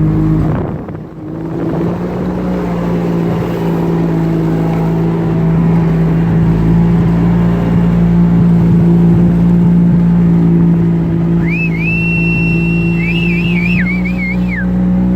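Vehicle engine running steadily under load, dipping briefly about a second in. Near the end a high, wavering whine sounds for about three seconds.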